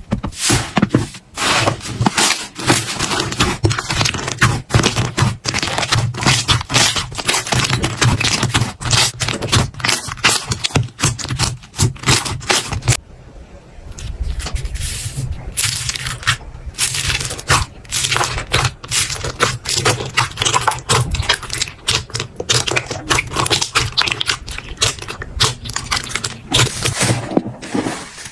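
Slime being played with, giving a dense run of sticky crackles, clicks and pops, with a short quieter pause about halfway through.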